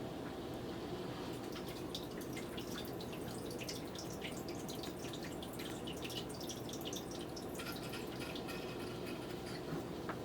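Steady background hiss with many faint, irregular light clicks through the middle: keys of a mechanical keyboard with clicky Kailh Blue switches being pressed lightly.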